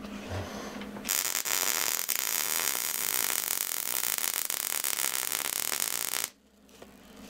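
Wire-feed (MIG-style) welder arc welding a threaded rod onto the bus's steel wall rib. The arc strikes about a second in, gives a steady loud crackle for about five seconds, then cuts off suddenly.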